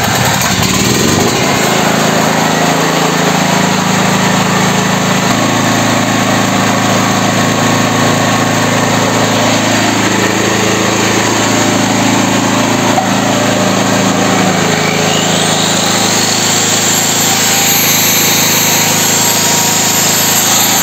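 Petrol generator's engine running steadily, having just caught on half choke after its far-too-wide valve clearances were reset. About fifteen seconds in, an angle grinder powered from the generator spins up over it with a rising whine.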